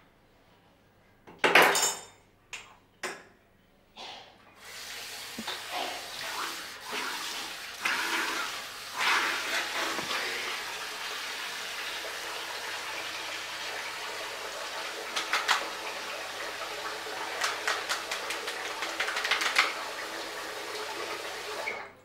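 A few short splashes of water, then from about four seconds in a steady rush of running water with splashing as a man washes his face and body, cutting off just before the end.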